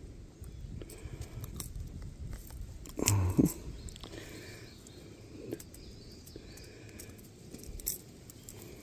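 Needle-nose pliers clicking and scraping against a lure's hook and a rubber landing net while a hook is worked out of a northern pike's mouth. A brief low grunt comes about three seconds in.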